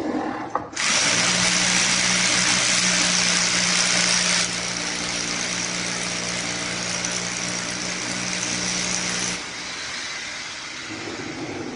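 Electric drill boring up into a concrete ceiling: a steady motor whine with a harsh grinding hiss that starts about a second in, is loudest for the first few seconds, then eases and drops off near the end.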